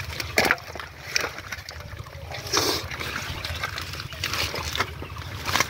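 Live catfish dropped into a plastic bucket of water, splashing and thrashing. Several sudden, irregular splashes.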